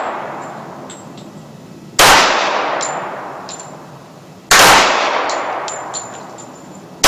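Dan Wesson Valor 1911 pistol firing slow single shots, about two and a half seconds apart, each with a long echoing decay. Another shot comes right at the end, and light metallic clinks sound between the shots.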